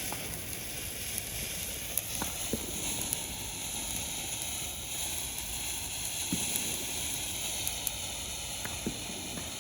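A lit firework sizzling with a steady hiss, with a few faint scattered crackles.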